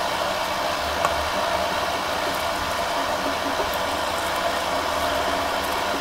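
Steady, even hiss of background noise with no distinct events, and one faint click about a second in.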